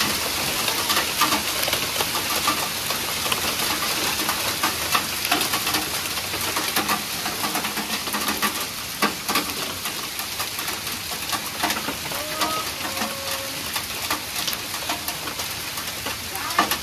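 Hail falling with heavy rain: a steady hiss peppered with many sharp clicks of hailstones striking the ground, leaves and nearby surfaces.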